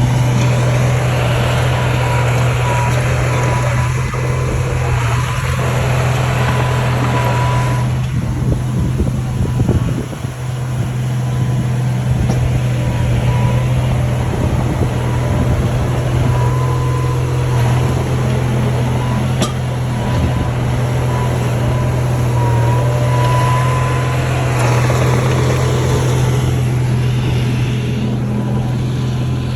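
Bulldozer's diesel engine running steadily, with a thin high whine held over the low engine hum and stretches of louder machine noise coming and going.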